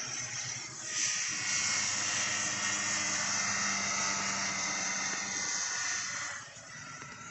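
Vintage two-stroke snowmobile engines running down a drag strip at a distance, a steady drone with a high hiss that fades off near the end.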